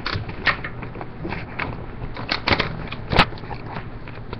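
Hard plastic goggle parts being handled and worked apart: a series of sharp clicks and knocks, the loudest three coming in a cluster past the middle.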